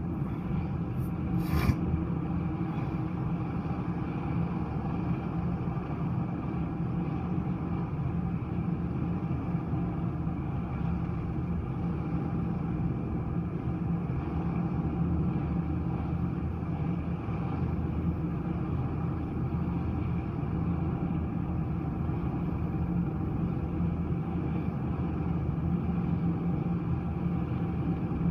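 Helicopter hovering close by, a steady drone of rotor and turbine, with one sharp click about a second and a half in.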